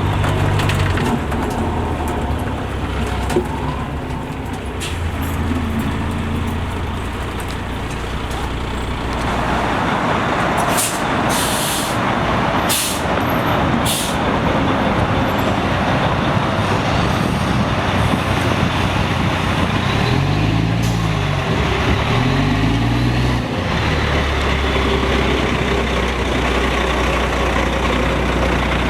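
Caterpillar C13 diesel of an MCI D4500CL coach bus running, with a stretch of air hissing about a third of the way in. Near the end the engine note rises and falls twice, then settles back to a steady low hum.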